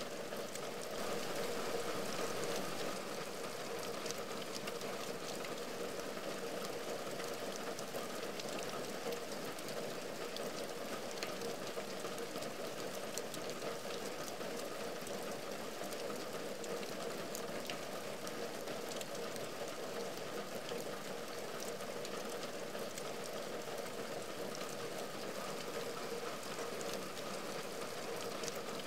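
Steady rain falling on a window and its outside ledge, with many small ticks of single drops hitting.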